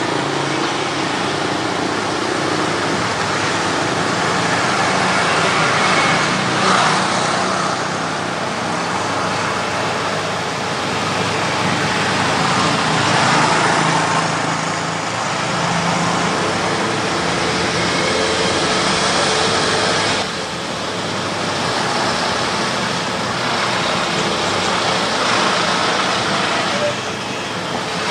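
Car on the move: steady engine hum and road noise, heard from inside the car.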